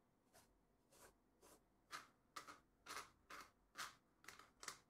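Short quiet scrapes, about two a second and about ten in all, as the Jupiter-21M's metal lens block is unscrewed from its barrel by hand, each twist of the hands giving one scrape.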